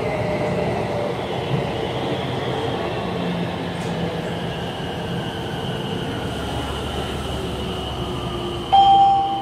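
BTS Skytrain car braking into a station: steady running rumble with the electric motors' whine falling in pitch as the train slows, then a short, loud electronic beep near the end.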